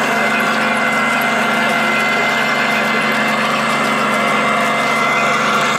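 Onboard sound unit of a radio-controlled Leopard 2A6 model tank playing a steady engine-idle sound through its small loudspeaker.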